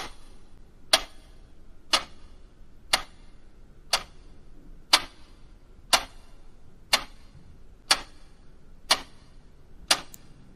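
Clock ticking, one sharp tick every second.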